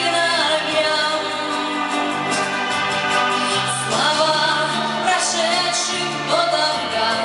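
A song performed with a singing voice over amplified instrumental accompaniment, with steady held bass notes underneath.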